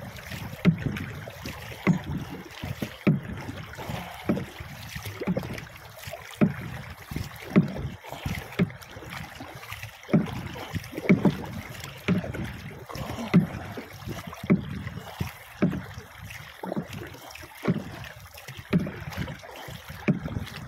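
Water sloshing and slapping against the hull of a small outrigger boat moving over calm sea, in uneven surges about once a second, with no engine running.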